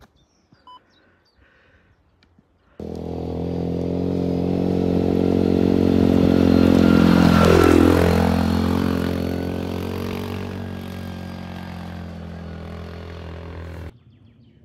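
A motor vehicle's engine running steadily, growing louder to a peak about halfway and then fading, as it would passing close by. It cuts in and cuts off suddenly.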